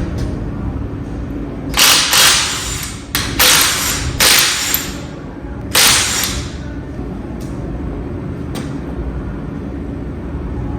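Impact wrench run in five short bursts, taking the lug nuts off a car wheel, over a steady low hum.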